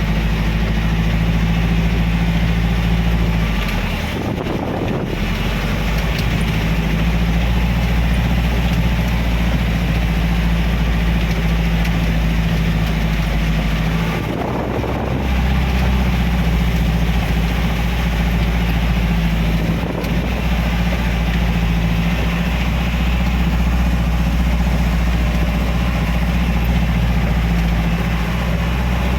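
Car engine running steadily under the hiss of heavy rain and tyres on a soaked road, heard from inside the car. The engine note drops out briefly twice, about 4 and 14 seconds in, then returns.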